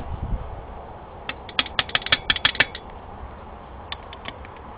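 Loose connecting rod in a torn-down Subaru WRX engine being worked by hand, its worn rod bearing letting it clunk against the crank journal with a quick run of sharp metal clicks about a second in and a few more near the end. The play is the rod knock the engine had.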